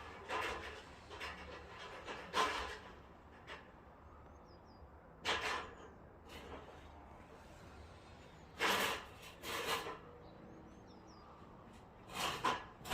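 About six short scraping or rubbing noises at irregular intervals a few seconds apart, with a few faint bird chirps.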